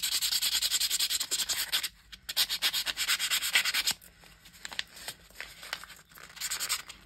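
A sheet of paper being screwed up and rubbed between the hands to age it, a dense crinkling crackle. It pauses briefly about two seconds in and is softer for a while in the second half, then louder again near the end.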